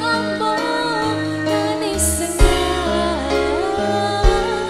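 Live dangdut band music: a wavering melody over steady bass notes, with a couple of sharp drum hits.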